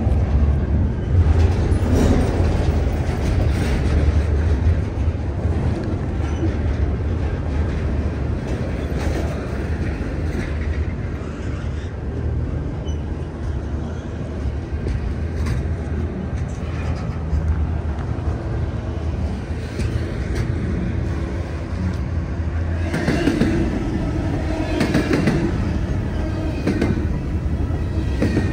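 Train rolling past on the line: a steady low rumble, then louder wheel clacking and rattling over the last few seconds.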